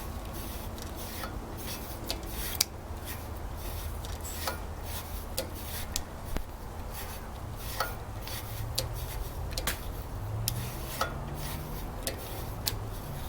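Hand scraping and rubbing on metal, with scattered sharp clicks and taps: carbon being cleaned off the valves of a Briggs & Stratton engine.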